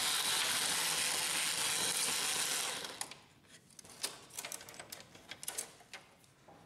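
Cordless electric screwdriver running steadily as it backs out a screw, stopping about three seconds in; then a few light clicks as plastic parts and flat cables are handled.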